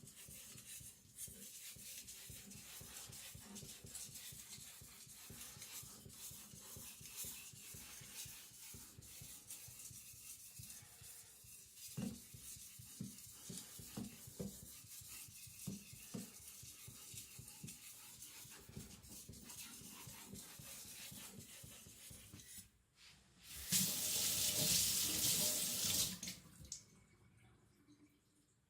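Cleaver edge stroked lightly along a wet whetstone under just the knife's weight, a soft, steady scraping with gentle rocking strokes. Near the end, water from a tap runs for about three seconds, louder than the sharpening.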